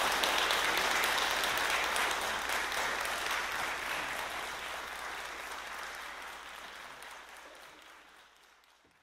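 Audience applauding, dense steady clapping that fades out smoothly over several seconds.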